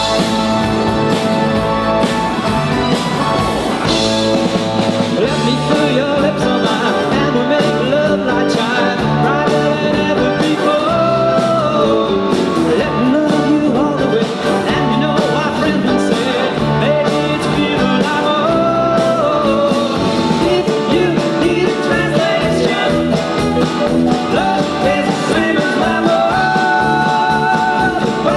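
A live band playing a rock-and-roll song, with singing over guitar and a steady beat.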